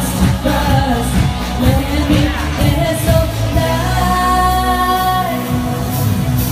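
Pop song sung over musical accompaniment, with the singer holding one long note in the middle.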